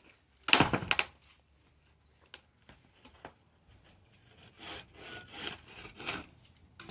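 Wood being cut with a hand saw: one loud stroke about half a second in, then a run of about five saw strokes, roughly two a second, near the end.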